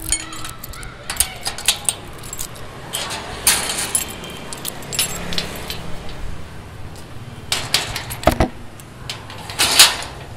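Irregular clicking, clinking and rattling of small hard objects being handled, over a steady low background hum, with a sharp knock about eight seconds in.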